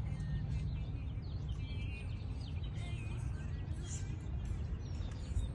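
Small birds chirping and twittering in many short, quick calls over a steady low rumble.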